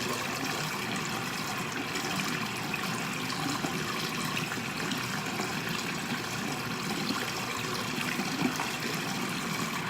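Tap running hot water steadily into a sink.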